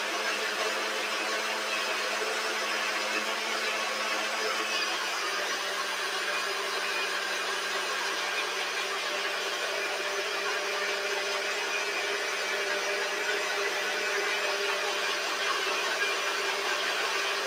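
Steady hum and hiss of a small electric motor running, with a faint steady tone that shifts slightly higher about five seconds in.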